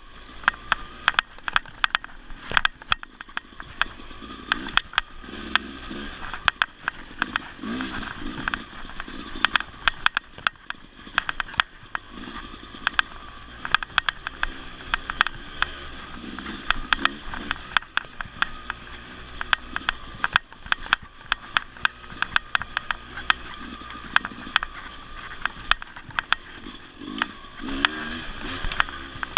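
Dirt bike engine running on and off the throttle on a rough trail, under a constant clatter of sharp clacks and rattles from the bike jolting over the bumps.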